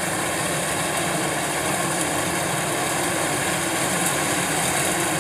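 Kubota DC-105X rice combine harvester running steadily while cutting standing rice: its diesel engine and threshing machinery give an even, unbroken drone.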